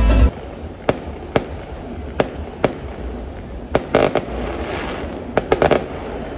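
Fireworks going off at a distance: sharp single bangs every half second to a second, a crackling cluster about four seconds in, and a quick run of four pops near the end.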